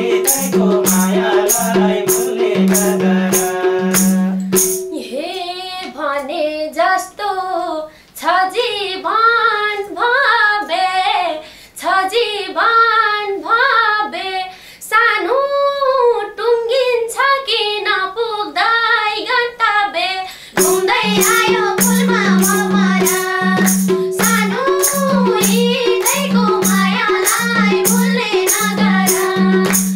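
Women singing a Nepali dohori folk song, accompanied by a madal hand drum and a tambourine. The drum and tambourine stop about four seconds in, leaving the voices alone, and come back in with a steady beat about twenty seconds in.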